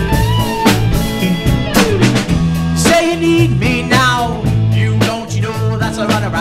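A live rock band plays with drum kit, electric bass and electric guitars on a steady beat. A man's voice sings over it from about three seconds in.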